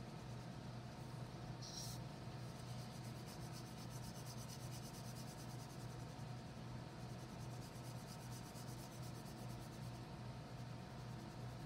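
Wax crayon scribbling on paper in quick back-and-forth shading strokes, densest from about two seconds in until shortly before the end, over a steady low hum.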